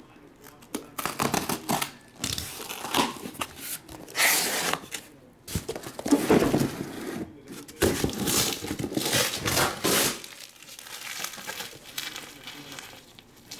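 Box cutter slitting the packing tape on a cardboard shipping case, then cardboard flaps rustling and scraping as the case is opened and lifted off the boxes inside. Irregular bursts of tearing and crinkling that die down about ten seconds in.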